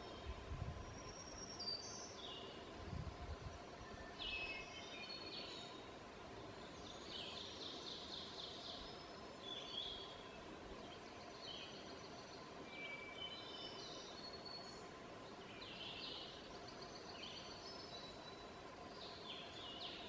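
Woodland birds singing, several songs and calls overlapping: short whistled notes, chirps and trills, all through.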